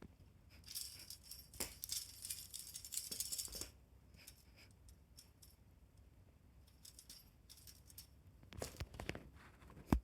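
A fishing-rod style pet teaser toy rattling and jingling as it is played with: a dense jangly burst for about three seconds, then scattered light clicks, a short flurry of knocks, and one sharp knock at the very end.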